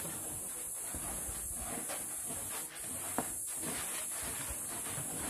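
Hands rubbing and rolling damp couscous grains against a galvanized metal tray: a steady granular rustling hiss as the grains are worked into small pellets.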